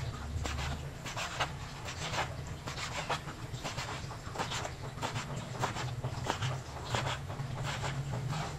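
Chef's knife slicing raw beef into thin strips on a plastic cutting board: a run of short scraping strokes, roughly two a second, over a steady low hum.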